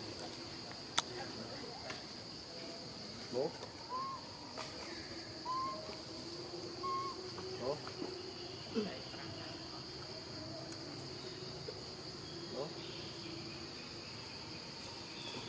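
Insects droning steadily at a high pitch, with a few short, arched chirping calls and brief squeaks over it, and a single click about a second in.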